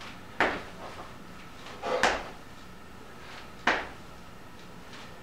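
Feet landing from jump squats on an exercise mat over a wooden floor: three sharp thuds, about one every second and a half.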